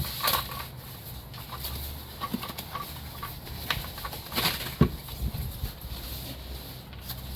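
Rustling and knocking of packaging being handled and opened, with a couple of sharp knocks about four and a half seconds in.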